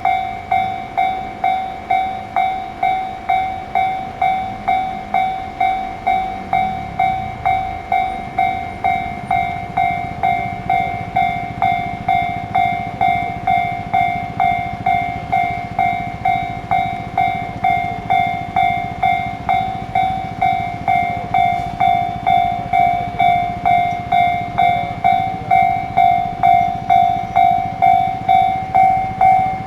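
Japanese railway level-crossing warning bell ringing steadily, about one and a half dings a second. Under it a train's low rumble comes in about seven seconds in and carries on as the train passes over the crossing.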